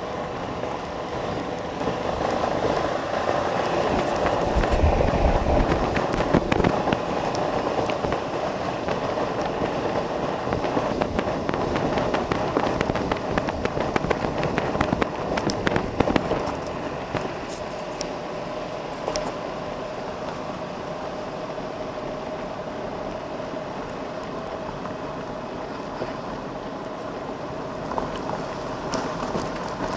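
Golf cart driving over a gravel road: tyres crunching and popping on loose stones, the cart rattling over bumps, with a steady motor hum underneath. Rougher and louder through the first half, then smoother and quieter.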